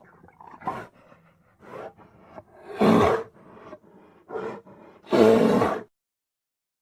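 Film creature sound effects for the furry creature Bear: a string of short grunts and growls, with a loud roar about three seconds in and another, longer one about five seconds in, then silence.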